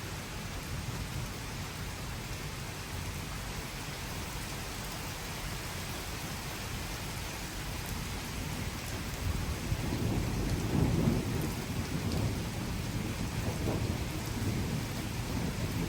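Steady rain with a low rumble of thunder that builds a little past the middle, peaks and then rolls on more softly to the end.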